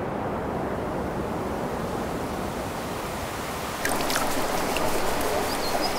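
A steady outdoor noise bed. About four seconds in it gives way to water splashing and dripping as a wet arm is scrubbed with a bar of soap.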